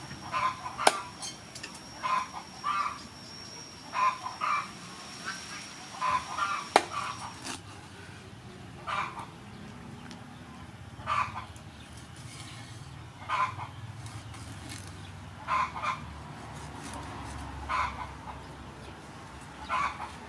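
A chicken clucking, short calls repeating every second or two and settling to about one every two seconds. Two sharp knocks, about a second in and about seven seconds in, from a cleaver striking the wooden chopping board.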